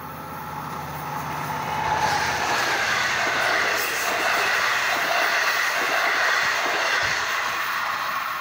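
Long Island Rail Road train of bilevel passenger coaches passing through the station on the near track. The wheels on the rails make a rising rush that becomes loud about two seconds in, holds as the coaches go by, and begins to fade near the end as the cab car pulls away.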